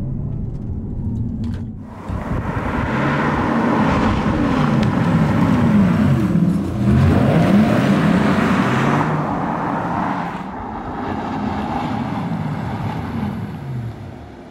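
Porsche Taycan Turbo S electric drive sound, amplified by Porsche Electric Sport Sound: a futuristic, spaceship-like whine whose tones glide up and down in pitch as the car accelerates and slows, over road and tyre noise. It is loudest in the middle and fades toward the end.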